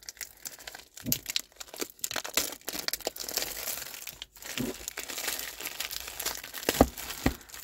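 Clear cellophane wrapping on a stack of Stampin' Pad ink pads crinkling as the pads are handled, with a few light knocks of the pad cases near the end.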